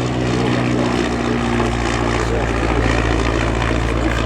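Royal Aircraft Factory SE5a's 200 horsepower Wolseley Viper V8 aero engine running steadily with its propeller, its pitch easing slightly in the first two seconds.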